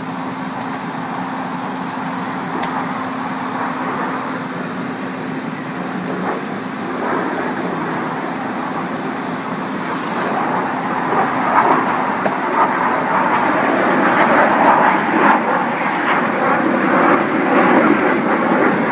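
An engine running steadily with a constant hum, under continuous mechanical and traffic-like noise that grows louder and rougher through the second half.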